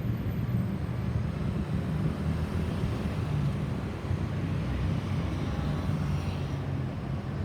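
Road traffic noise: a steady low rumble of vehicle engines and tyres on the road.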